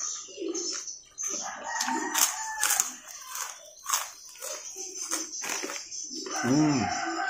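Mouth noises of eating by hand: sharp lip smacks and chewing of the last rice, with a short low sound that rises and falls in pitch near the end.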